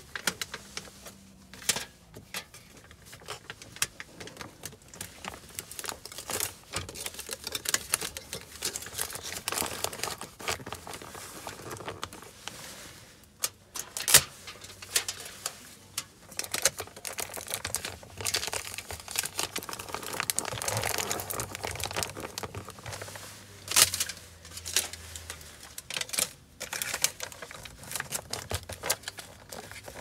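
Foil-faced duct insulation crinkling and rustling as it is handled and pressed around a duct, with irregular clicks and taps, a few of them sharper.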